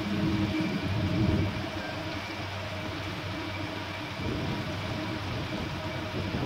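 Steady engine drone, a low hum strongest for about the first second and a half, then fading into a broad hiss of wind and water.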